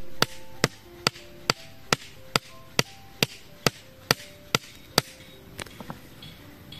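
Machete striking the top of a wooden stake to drive it into the ground: a steady run of about a dozen sharp knocks, roughly two a second, stopping about five seconds in.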